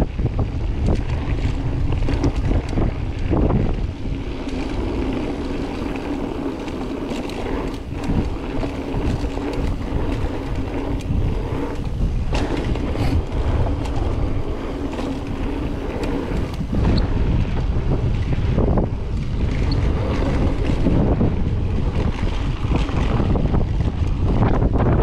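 Mountain bike descending a dirt trail: wind rushing over the camera microphone, tyres rumbling, and the bike clattering over bumps. A steady hum runs through much of it and breaks off twice.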